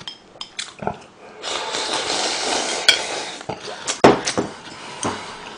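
A long slurp of instant ramyeon noodle soup from a bowl held to the mouth, lasting about two seconds. A few short clicks of a utensil against the bowl follow, with chewing.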